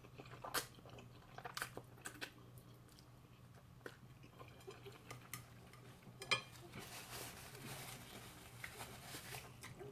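A person chewing food close to the microphone: faint, scattered wet clicks and small crunches, with a soft rustling stretch near the end.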